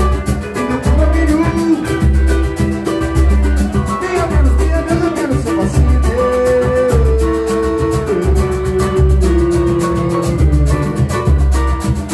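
Live pagode band playing: a surdo beats deep strokes about once a second under strummed cavaquinho and fast hand percussion, with a held melody line stepping down in pitch above.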